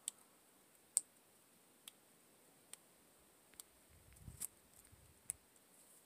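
Near silence, broken by faint sharp clicks at an even pace of a little over one a second, and a soft low rumble about four seconds in.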